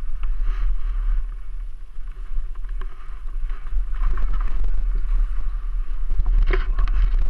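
Snowmobile engine running hard through deep powder, heard from a helmet camera with a heavy rumble of wind on the microphone; it grows louder about four seconds in.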